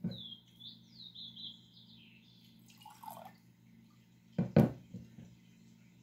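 Water trickling into a drinking glass with a high, wavering pitch for about two seconds, then a couple of sharp knocks of the glass about four and a half seconds in.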